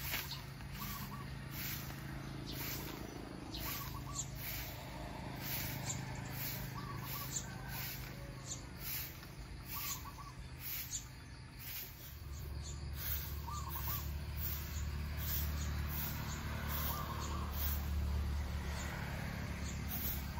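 Birds calling: short chirps every few seconds over a faint regular pulsing about once a second. A low rumble comes in about halfway through.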